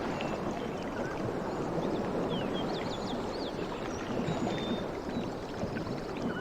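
Sea waves washing on the shore: a steady wash of surf as a wave draws back, with faint high chirps scattered over it.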